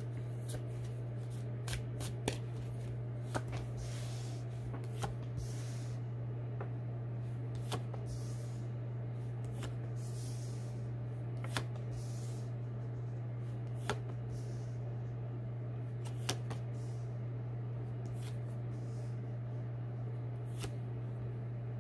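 Tarot cards being handled and dealt onto a table: a few soft sliding swishes and scattered sharp card snaps, several seconds apart, over a steady low hum.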